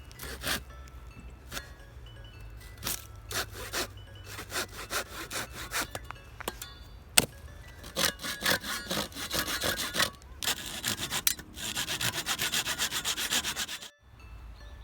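Hand saw cutting a length of dry fallen wood into firewood-sized pieces, in back-and-forth strokes. The strokes start slow and uneven and turn fast and regular near the end, then stop suddenly.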